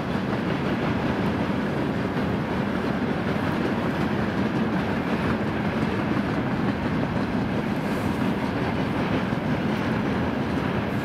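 Freight train rolling past, a steady noise of its wagons running on the rails.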